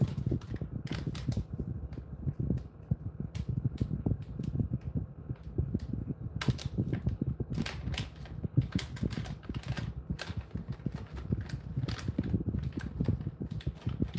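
A Jindo-mix dog panting rapidly and steadily, with scattered sharp clicks.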